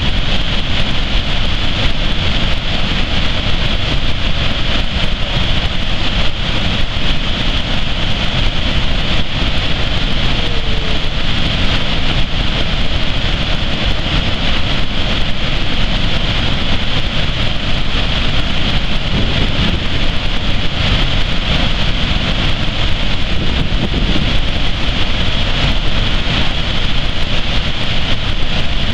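Niagara's Horseshoe Falls: the loud, steady rush of water plunging into the basin, an unbroken noise with a deep rumble beneath.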